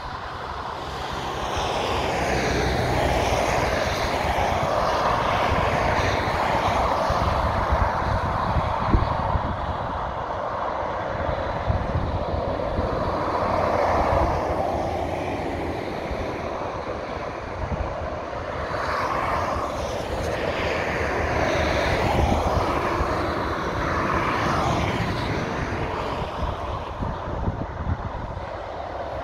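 Motorway traffic passing close by: the tyre roar and engine noise of lorries and cars swell and fade several times as vehicles go past, over a steady low rumble.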